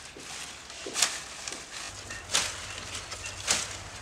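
A blade chopping into a banana plant's fibrous stalk to cut down a bunch of raw bananas: three sharp strikes, a little over a second apart.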